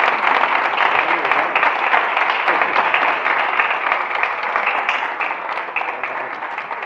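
Audience of diners applauding: many hands clapping densely, slowly dying down toward the end.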